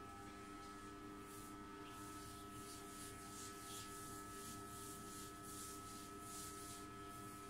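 Fingers rubbing through wet hair, a soft swishing repeated two or three times a second, over a faint steady hum.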